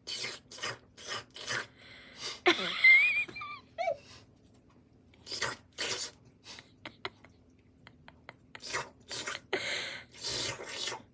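A person making short, spitting, hissing mouth noises in quick strings, imitating the 'chwak-chwak' sound a cat makes while grooming. Between about two and a half and four seconds in, a squeaky voice-like note glides up and down and then falls.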